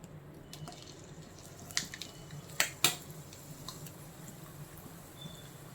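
Kitchen handling sounds as a large piece of dough goes into frying oil: four sharp clicks and taps of utensils, two of them close together near the middle, over a faint steady background.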